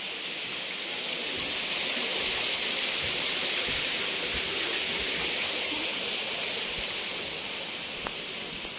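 Running water splashing, a steady hiss that swells over the first couple of seconds and slowly fades near the end.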